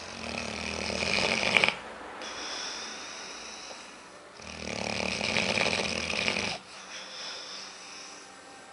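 Chocolate Labrador snoring heavily in her sleep: two long snores, each swelling louder and cutting off sharply, with a quieter breath in between.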